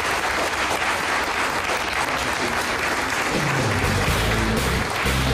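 Audience applauding. About three seconds in, a rock band starts playing under the clapping, with low bass notes stepping from one pitch to another.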